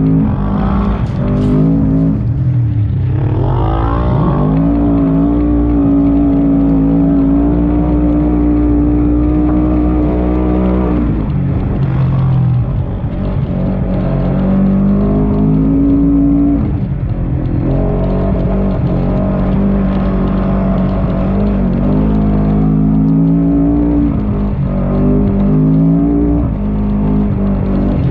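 Segway Villain side-by-side UTV engine under load in sand, its pitch holding steady at high revs and then dropping and climbing again several times as the throttle is lifted and reapplied.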